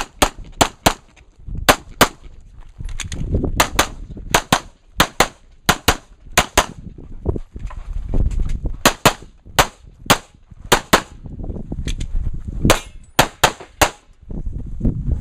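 Handgun fired rapidly during a timed action-pistol stage: about two dozen sharp shots, mostly in quick pairs and short strings, with brief pauses between groups.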